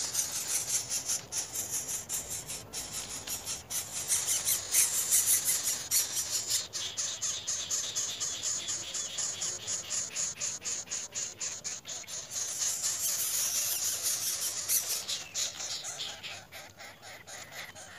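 Mice squealing rapidly and shrilly while a greater coucal attacks them in their hole in the grass, with rustling of dry grass. The squealing is loudest about a third of the way in and again near the end, then fades.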